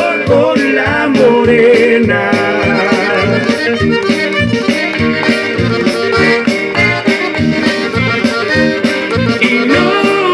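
Button accordion playing a Tejano melody over a backing track with a steady drum beat and bass.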